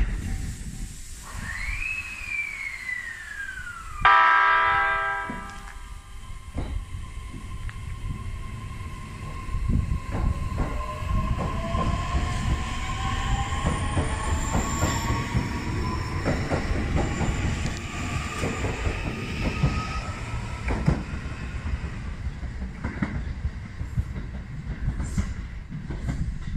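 E131-series electric train in the station: a motor whine rising slowly in pitch as it gets under way, over low rolling rumble and clicks of wheels on rail joints. About four seconds in, a sudden loud blast of several tones together fades out over about two seconds.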